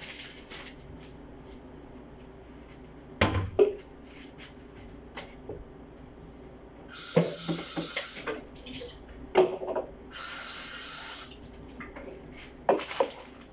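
Kitchen containers being handled: several knocks and clatters, and two bursts of hissing, rushing noise of about a second each near the middle.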